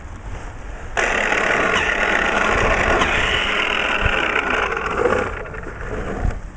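A corded electric snow thrower's motor starts abruptly about a second in, runs steadily with a faint whine, then cuts out and winds down just after five seconds in, because the extension plug keeps falling out of its socket.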